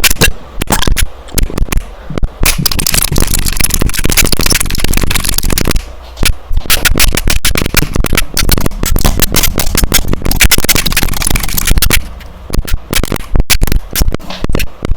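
Rapid typing on a keyboard: a dense, loud stream of key clicks, with brief lulls about six and twelve seconds in.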